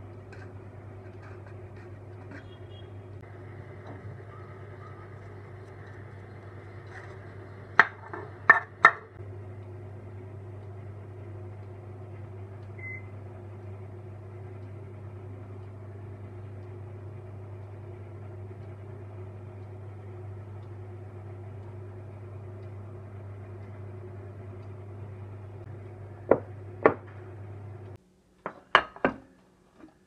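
A kitchen appliance hums steadily and low. Three sharp metal knocks, like a metal loaf pan or utensil being struck, come about eight seconds in, and a few more knocks come near the end, where the hum cuts off.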